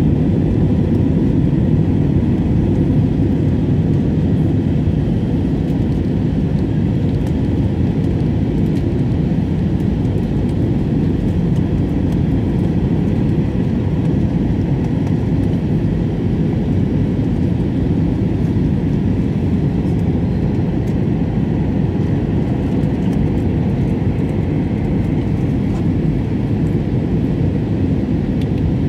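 Steady cabin noise of an Airbus A320 airliner on approach, heard from inside the cabin: a deep, even rumble of engines and airflow with a faint steady hum.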